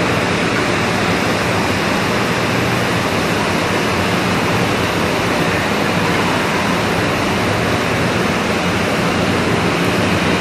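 Loud, steady industrial din of a processing plant's ventilation fans and machinery, an even rush with a low hum underneath.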